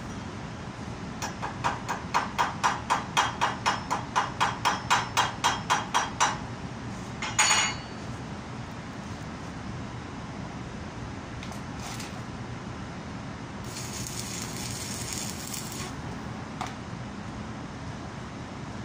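A small hand hammer strikes the weld on a cast iron flange in a fast run of about twenty blows, roughly four a second, then gives one louder ringing clink. A faint hiss lasts about two seconds later on.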